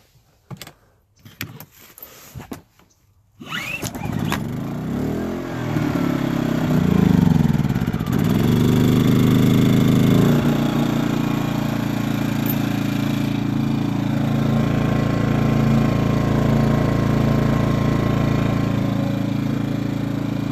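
Predator 2000 inverter generator's small single-cylinder four-stroke engine on a cold start: a few short knocks, then it catches about three and a half seconds in. Its speed surges up and down for several seconds and then settles to a steady run about ten seconds in.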